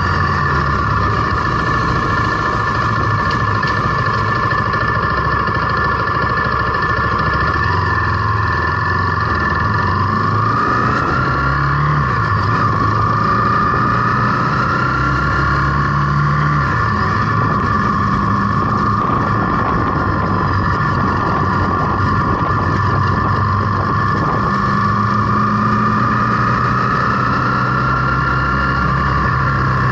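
Zontes T350 motorcycle's single-cylinder engine running while riding, its pitch rising a few times as it accelerates and dropping back between, with wind noise on the microphone.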